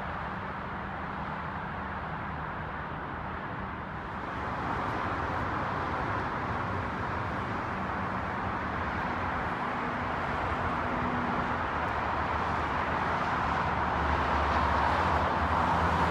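Steady road traffic noise, growing louder about four seconds in and again near the end.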